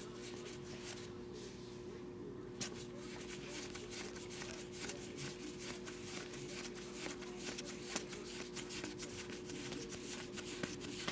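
2020 Topps Heritage baseball cards being thumbed through one at a time, each card slid off the stack with a soft papery flick, in a steady run, over a faint steady hum.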